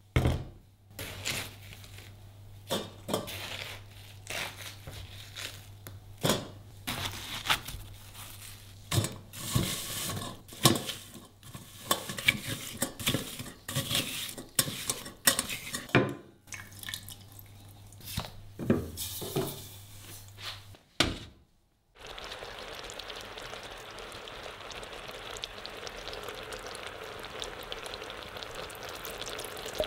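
A metal spoon repeatedly clinks and scrapes against a mesh strainer and steel pot while pressing watermelon flesh through it. After a short break about 22 seconds in, sugar syrup bubbles steadily in a saucepan on the hob.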